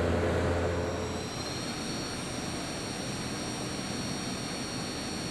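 Haas DT-1 CNC drill/tap machine running, a steady rushing noise with a thin high whine that sets in about a second in, as a low hum drops away.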